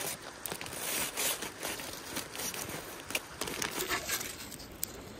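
Aluminium foil packets crinkling and rustling as they are pulled open and dug into, with short sharp clicks of a knife and fork against the foil.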